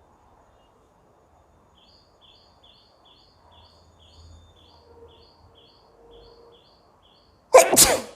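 A bird chirps repeatedly in the background, about two or three short chirps a second. Near the end comes a woman's single loud sneeze, brought on by tickling her nose with a blade of green grass.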